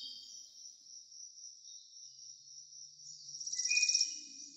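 Insects chirring: a steady high-pitched buzz that swells into a loud, fast pulsing trill about three and a half seconds in, then eases off.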